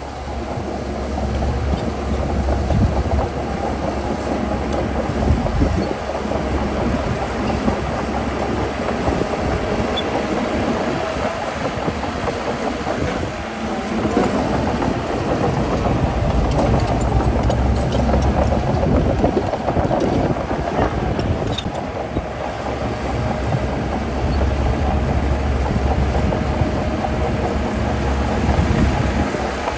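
Heavy diesel earthmoving machinery running continuously at work, a steady low engine rumble with noisy mechanical sound above it that wavers in loudness.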